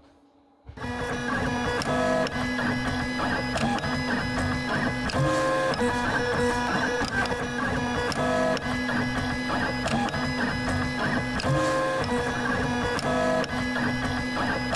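Artillery Sidewinder X1 3D printer printing: its stepper motors whine in shifting steady tones, starting abruptly about a second in, with a pattern that repeats about every three seconds.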